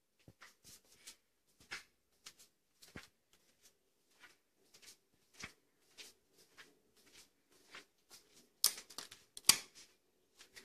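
Footsteps along a hard corridor floor mixed with the handling noise of a handheld phone: irregular soft taps and clicks, with two louder ones near the end. A faint steady hum sits under the later part.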